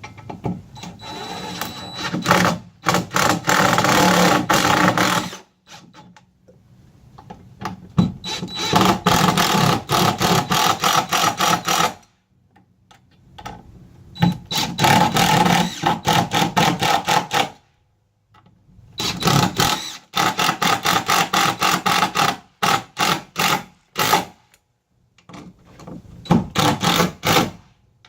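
Power drill running in repeated bursts of a few seconds, with pauses between, as it drives the screws that fasten the quick release plate down; near the end it runs in short trigger pulls.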